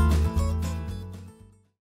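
Background music fading out, ending in silence near the end.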